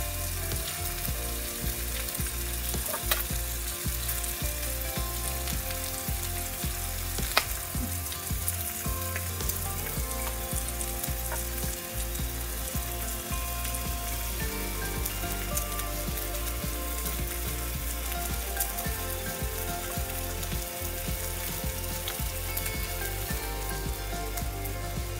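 Slices of frozen pork belly (naengsam) sizzling and crackling as they fry, with a few sharp spattering pops, the loudest about seven seconds in.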